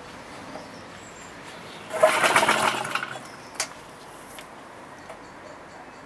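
JAP 2A stationary engine pulled over by hand with its starter cord: a loud burst of quick mechanical beats lasting about a second, then a single sharp click a moment later. The engine turns over but does not catch.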